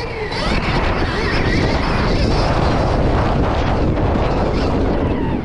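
Wind buffeting the microphone of a camera on a Stark Varg electric dirt bike ridden at speed over a dirt track. A faint whine rises and falls beneath the wind noise.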